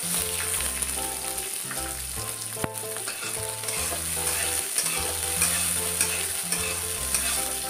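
Soaked, peeled peanuts sizzling in hot mustard oil in a metal kadai, the sizzle starting abruptly as they go into the oil. A metal spatula stirs and scrapes them in the pan, with one sharp knock about two and a half seconds in.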